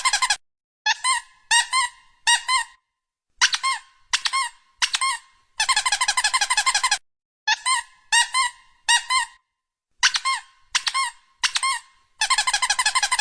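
Rubber squeaky-toy squeaks: rapid runs of about eight high squeaks a second alternate with sets of three single squeaks, all at the same level, as if each squeeze of the baby's body squeaks.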